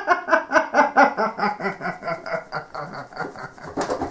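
A man laughing hard: a fast, even run of pitched "ha" pulses, about five a second, that sinks in pitch and fades away.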